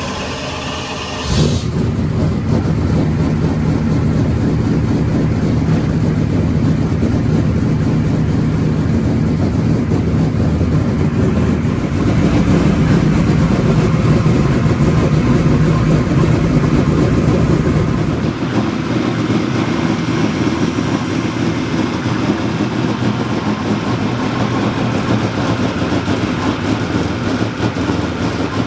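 Naturally aspirated 327-cubic-inch Ford Coyote V8 race engine on an engine dyno, cranking and catching about a second in, then running steadily. It runs louder for a stretch in the middle and drops back after about eighteen seconds.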